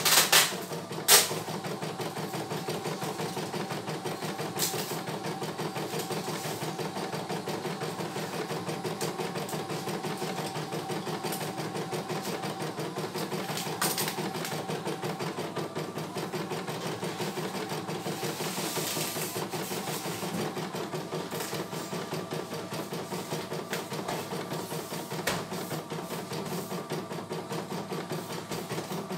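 CNY E900 embroidery machine stitching a design: the needle runs at a steady, rapid stitch rate. Two sharp clicks stand out in the first second or so.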